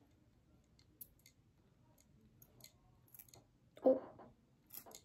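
Light clicks and handling noises from a fragrance bottle and its packaging, with one louder short sound about four seconds in.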